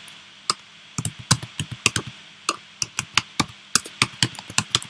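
Computer keyboard keys clicking in quick, irregular runs of keystrokes as code is typed.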